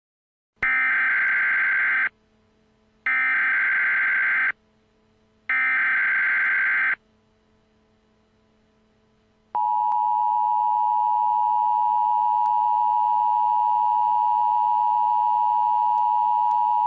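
Emergency Alert System opening: three identical bursts of screeching digital header tones (the SAME header), each about a second and a half long and a second apart. After a short pause comes the two-tone EAS attention signal, a steady, harsh dual-pitched tone held for about eight seconds. Together they announce an emergency alert, here a tornado warning.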